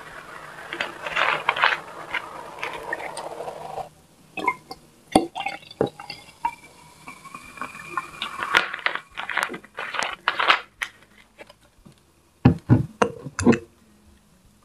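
Pepsi poured from a bottle into a glass jar, fizzing, the pouring tone rising in pitch as the jar fills. Several sharp knocks near the end as the glass and bottle are handled.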